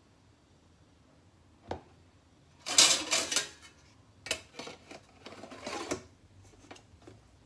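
Metal lid of a Pullman loaf pan clattering as it is picked up and slid shut along the pan's rim, metal scraping on metal. A single light knock comes before it.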